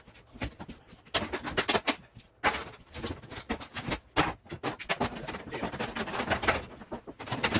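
Irregular knocking and clattering of interior demolition work: hard debris and fittings being struck and pulled out in quick clusters of sharp knocks with short pauses between.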